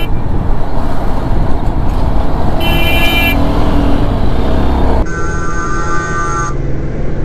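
Wind and road noise on a moving motorcycle, with two horn blasts: a short high one about two and a half seconds in and a longer, lower one from about five seconds. The horn warns a car being overtaken.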